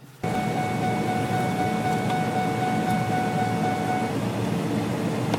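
Steady rumble of a vehicle running, heard from inside, cutting in suddenly, with a thin steady whining tone over it that stops about four seconds in.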